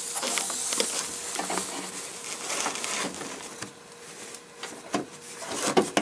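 Hands working inside a pickup's steel door shell, sliding a plastic door-lock rod clip into place: rustling and scraping through the first half, with a few small clicks.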